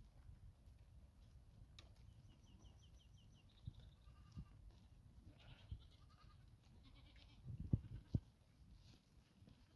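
Faint, distant animal calls, with two low thumps near the end.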